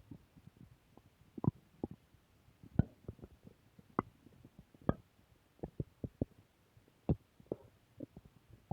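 Human stomach growling: a run of short, irregular gurgles and pops from the gut, several sharper ones standing out among fainter bubbling.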